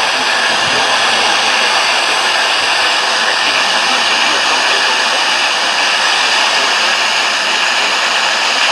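Radio receiver hissing with steady, loud static, with no programme or voice coming through.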